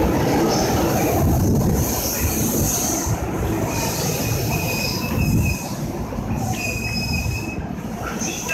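A JR East commuter electric train moving along the platform: a steady rumble of wheels on rail, with a thin high-pitched whine from about four seconds in. It grows somewhat quieter about halfway through as the cars clear the platform.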